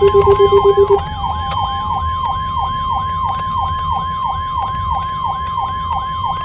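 Weather radio alert tones sounding together. A steady weather-radio warning alarm tone starts and holds, over a siren-like sweep that falls in pitch about three times a second. A fast-pulsing lower beeping stops about a second in.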